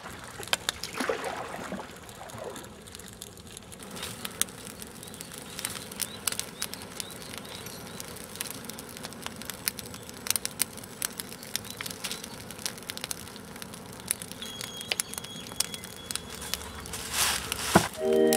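Ground fire crackling and snapping irregularly in dry grass and undergrowth, with a louder rush of noise near the end.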